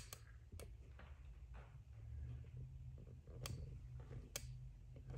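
A few faint, sharp isolated clicks of tool handling, about four spread over a few seconds, over a low steady hum.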